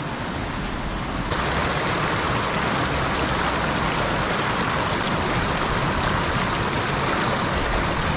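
Small mountain stream rushing over rocks, a steady water noise that gets louder and brighter about a second in.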